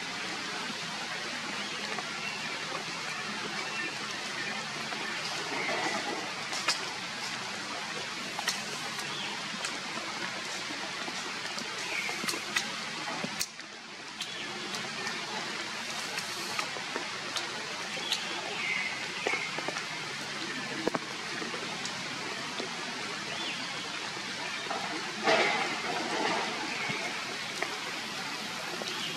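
Heavy rain falling steadily, an even hiss with scattered sharp ticks of drops. A few short faint chirps sound over it, and a brief louder sound comes about 25 seconds in.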